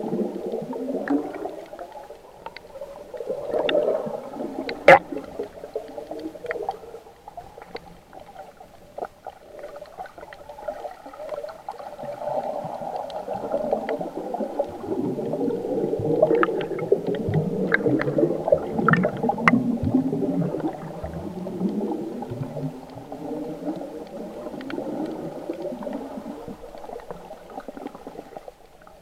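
Bubbles gurgling and water sloshing as heard underwater by a submerged camera, the snorkeler's air bubbles streaming past it. A few sharp clicks stand out, the loudest about five seconds in.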